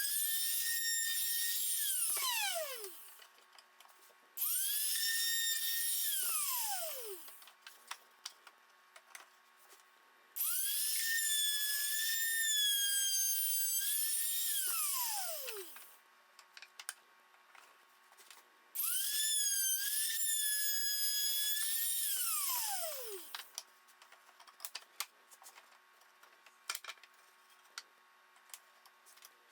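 A small high-speed electric power tool runs four times for a few seconds each, with a high-pitched whine. Each run spins up quickly, holds a steady pitch, then winds down with falling pitch once the trigger is let go. Light clicks and taps fall between the runs.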